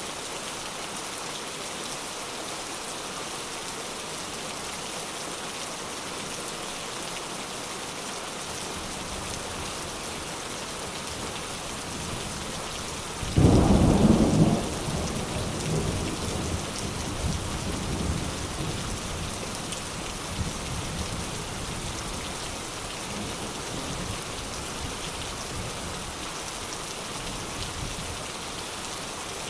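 Steady rain hissing, with a thunderclap breaking in sharply about halfway through and rolling off in a low rumble that fades over several seconds.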